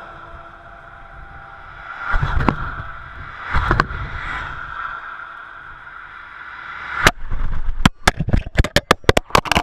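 Traffic rushing past a GoPro Hero 3 Black lying on asphalt, with two vehicles passing close about two and three and a half seconds in. From about seven seconds, a rapid run of sharp knocks and scrapes: the camera's plastic housing, struck by a passing car, tumbles and clatters across the road surface.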